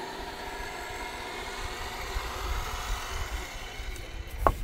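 Electric come-along winch motor running steadily, paying out its wire rope, then stopping about 4 seconds in. A sharp click or clank near the end as the hook is handled.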